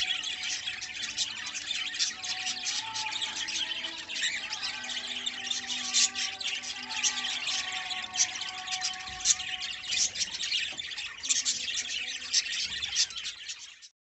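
A flock of budgerigars chattering, a dense stream of short chirps and squawks that overlap without a break. It cuts off suddenly near the end.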